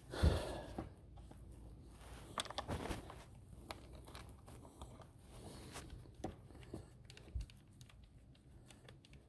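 Irregular rustling and crinkling of clothing as burrs are picked and torn off it by hand, with a slightly louder bump just after the start and another flurry a few seconds in.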